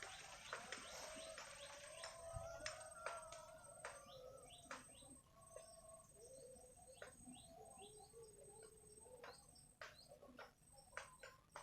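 Faint birds chirping and calling, many short notes sweeping downward, with scattered sharp clicks and a thin steady high tone.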